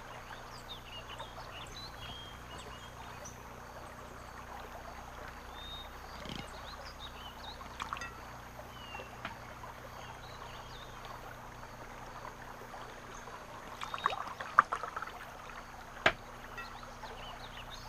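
Quiet scene ambience: a faint steady hiss with scattered short, high chirps. Late on come a few sharp knocks and clinks, one louder click near the end, fitting goblets and tableware being handled.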